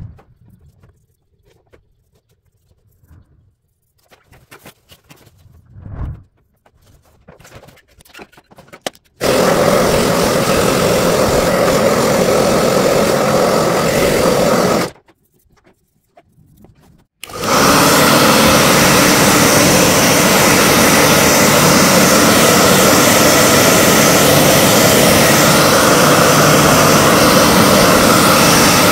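Handheld hair dryer blowing hot air, a steady rushing whir with a hum, after a quiet start with faint handling noises. It switches on about a third of the way in, cuts out for a couple of seconds about halfway, then runs again; it is heating vinyl film on a skirting board so that it shrinks and sets tight.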